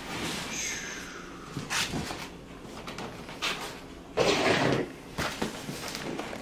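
A large cardboard box being opened and handled on a table: tape slit at one end, then cardboard scraping and sliding, with a few knocks. The loudest is a long scrape about four seconds in.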